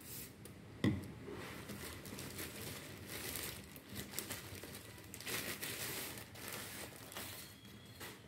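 Thin plastic courier mailer bag crinkling as it is handled and opened and a cardboard shoebox is taken out of it. There is a single thump about a second in.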